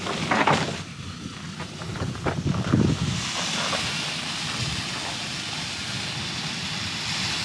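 A few knocks and clatter of a pan and stove being handled, then a Coleman gas canister camp stove's burner hissing steadily from about three seconds in. It was lit with a lighter because its igniter would not spark.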